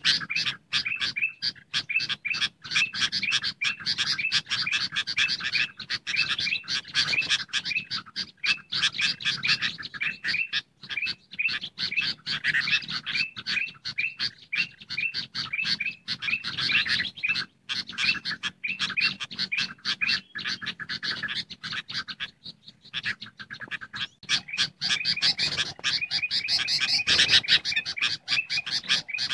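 Bird-lure recording of bulbuls and other small songbirds calling together: a dense, continuous chatter of rapid, short, high chirps with only brief gaps.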